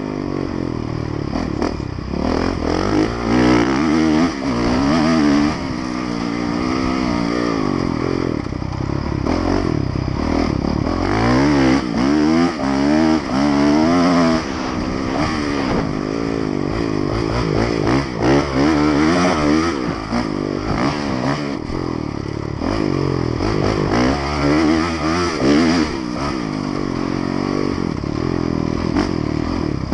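Honda motocross bike's engine revving hard under load, its pitch climbing and dropping again and again as the rider goes up through the gears and rolls off the throttle.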